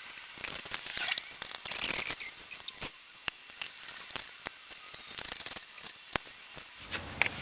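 Anti-seize being brushed onto wheel studs: light scraping with many small clicks and taps.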